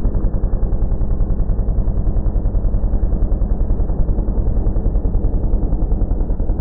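Cartoon alarm clock ringing in a rapid, pulsing rattle, heavily distorted and muffled, with the high end cut away and a deep rumble underneath.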